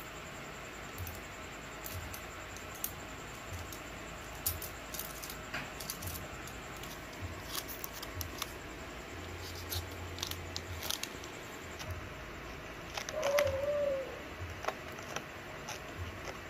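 Hands handling a clear plastic stamp sheet and its plastic packaging: irregular light crinkles and clicks. About thirteen seconds in comes the loudest sound, a brief wavering squeak.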